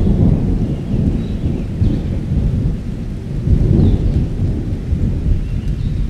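Wind buffeting the microphone: a loud, uneven low rumble that swells and dips in gusts, with a few faint short high chirps now and then.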